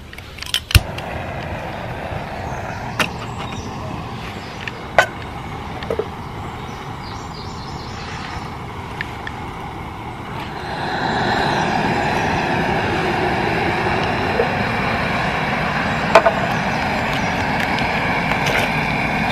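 Screw-on gas canister camping stove burning with a steady hiss after a click about a second in. It gets louder at about eleven seconds, with a few light knocks of a pot being handled.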